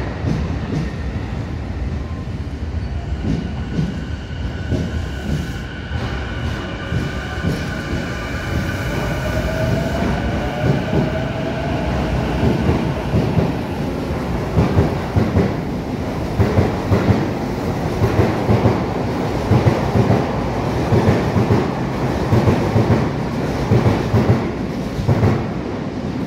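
Sotetsu 11000 series electric train pulling out of the station. Its traction motors whine, rising in pitch as it accelerates. From about ten seconds in, the wheels clack over the rail joints in repeated loud beats as the cars run past.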